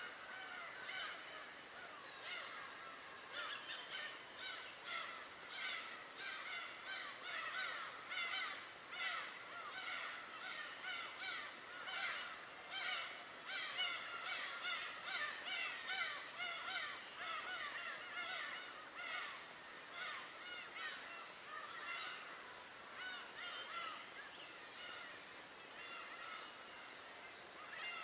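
A flock of birds calling, many short calls overlapping without a break; the calling is thickest through the middle and thins out toward the end.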